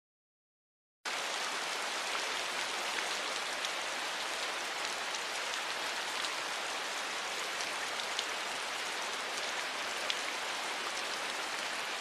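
Steady rain falling, with scattered drop ticks, starting about a second in after silence.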